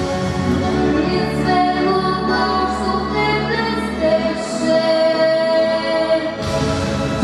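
A female singer sings a melody with long held notes over instrumental accompaniment.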